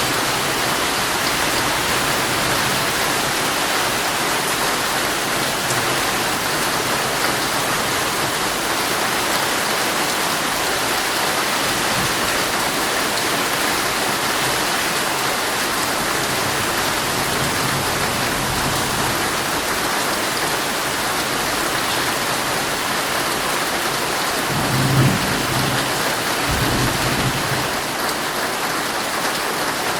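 Heavy rain drumming steadily on a tent. Near the end there is a brief low rumble.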